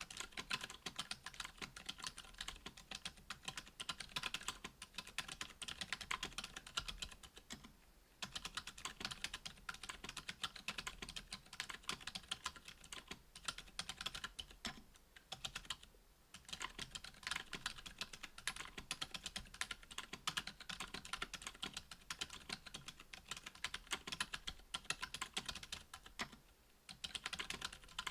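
Steady typing on a Duck Orion V2.5 mechanical keyboard with stock, unlubed Gazzew U4 Boba silent tactile switches on an FR-4 plate under GMK keycaps: a rapid run of muted key clicks, broken by a few brief pauses.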